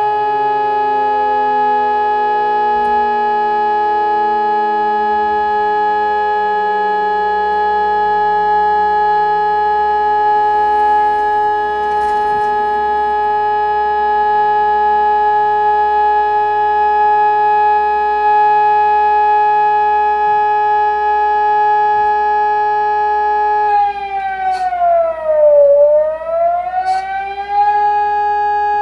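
Siren sounding a loud, steady high tone, with a second, lower siren tone gliding slowly downward through the first half. Near the end the pitch swoops down and climbs back up to the steady tone.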